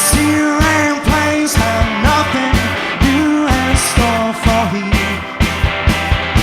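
A rock band playing live, with a steady drum beat, bass and guitar.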